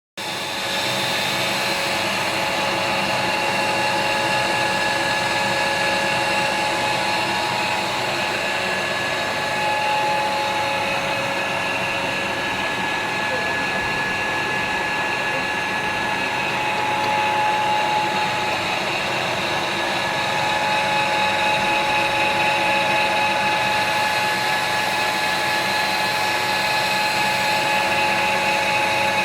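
CM6241 metal lathe running: a steady machine noise with several steady whining tones that change slightly partway through.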